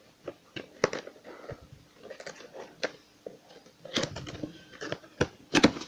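An electric kettle's cardboard box and packaging being opened and handled: scattered sharp clicks, crinkles and rustles.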